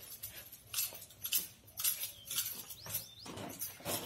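Flat plastic hose rustling and scraping in short irregular bursts as it is pulled and tightened by hand onto a treadle pump's outlet pipe.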